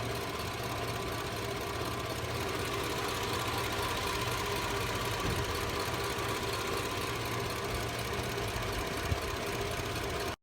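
Toyota Prado engine idling steadily, running again after its starter was repaired. The sound cuts off suddenly near the end.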